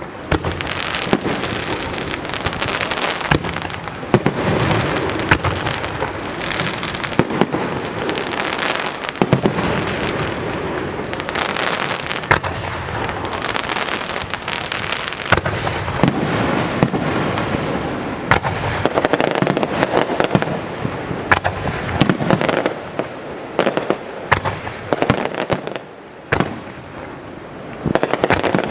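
Starmine fireworks barrage: many shells bursting in quick succession over a continuous crackle, with a short lull near the end before the bursts pick up again.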